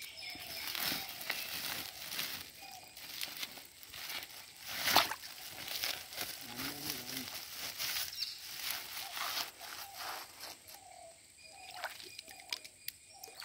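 Plastic sack rustling and crinkling in a run of short crackles, the loudest about five seconds in, as a caught freshwater prawn goes into it.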